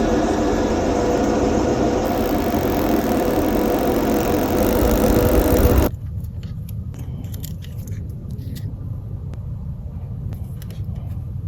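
A motorised tool runs with a steady hum and a loud hiss, then cuts off abruptly about six seconds in. After that come faint clicks and handling sounds.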